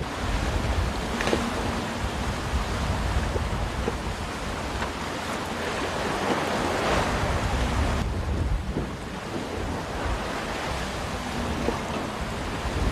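Wind and waves at sea, a steady rushing with wind buffeting the microphone. About eight seconds in it turns duller, losing its high hiss.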